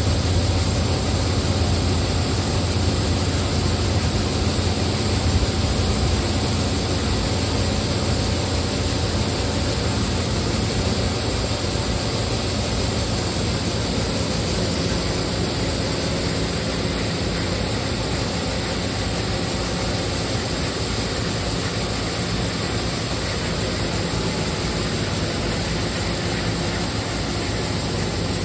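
Steady drone of farm grain-handling machinery running while corn is unloaded at the bin: a strong low hum under an even rushing noise, easing off slightly in level toward the end.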